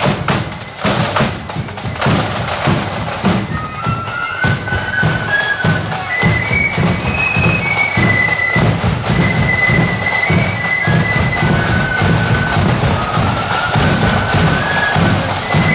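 Marching flute band: the drums beat alone at first, then the flutes come in with a high melody about three and a half seconds in, over a steady bass drum beat.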